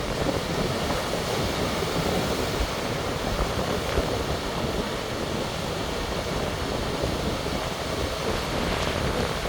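Sea waves surging and washing against the shore, a steady rushing noise, with wind rumbling on the microphone.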